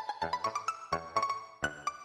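Background music: a melody of short, bright pitched notes with sharp attacks.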